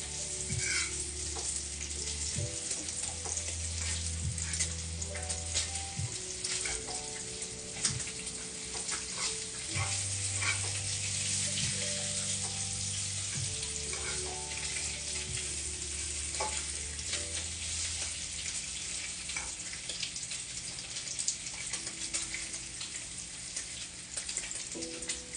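Food sizzling in a hot pan on a gas stove: a steady hiss with scattered small pops and crackles. Background music with a bass line and held notes plays underneath, its bass dropping away in the last third.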